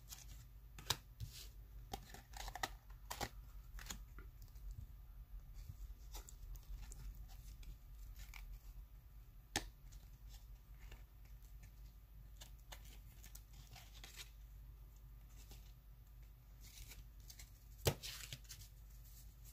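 Faint handling of 1992 Fleer Ultra baseball card packs and cards: wrapper tearing and crinkling, and cards that are sticking together being peeled apart and shuffled. Sharp snaps and clicks come now and then, the loudest about a second in, near ten seconds in, and shortly before the end.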